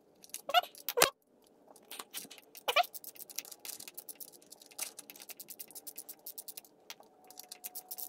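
Ratchet wrench with a 10 mm socket clicking in quick runs of ticks as a bolt on the clutch pedal bracket is turned out. Two short squeaks come near the start, and there is a sharper click about a second in.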